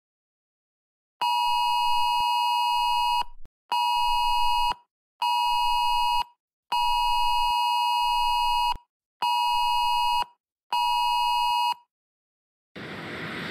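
Electronic alert beeps: a steady high beep sounded six times in a long-short-short, long-short-short pattern.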